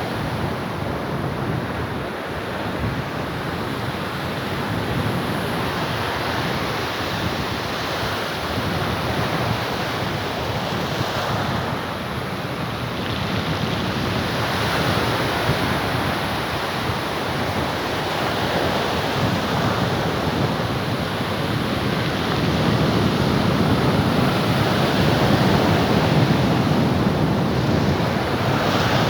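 Sea waves washing onto the shore, the surf swelling and easing every few seconds, with wind buffeting the microphone.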